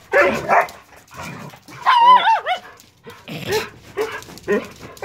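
Excited dogs greeting their owner: a couple of short barks, then high wavering whines, then quick yips.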